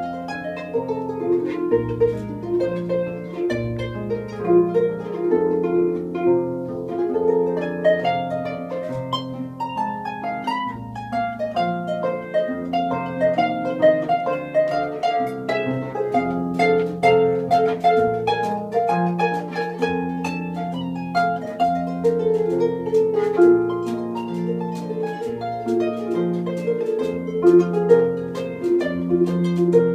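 Instrumental blues passage played on plucked string instruments: quick picked notes over a steady, sustained bass line, with no singing.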